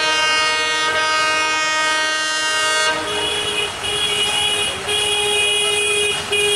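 Diesel locomotive's air horn sounding: one long blast of several notes together, then, about three seconds in, a run of shorter blasts on a different tone.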